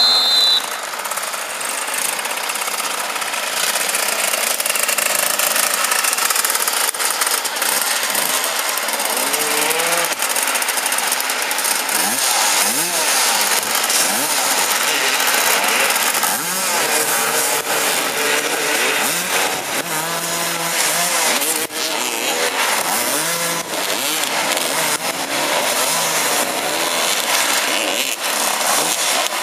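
Several motoball motorcycles' engines revving and buzzing together, pitches rising and falling over and over as the riders manoeuvre around the ball. A short high whistle blast sounds right at the start.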